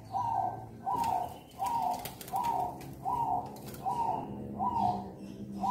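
Zebra dove (perkutut) cooing in the 'crossing' song rhythm: a regular run of about eight short, even notes, a little more than one a second.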